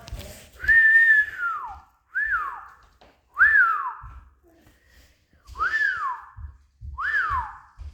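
A person whistling five times, each whistle a short high note that swoops quickly downward, the first held a little longer: whistling to call the puppy.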